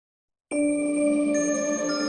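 Intro music starting suddenly about half a second in: sustained chime-like tones, with high bell notes entering one after another.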